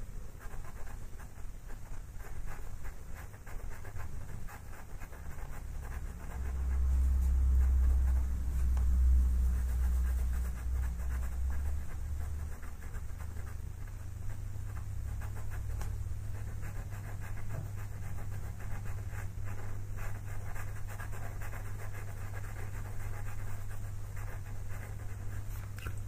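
Pastel pencil scratching on pastel paper in short, rapid strokes, over a low steady hum that swells for several seconds about six seconds in and then settles.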